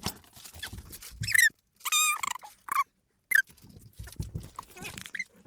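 A dog whining, a run of short high-pitched whimpers with one longer whine about two seconds in.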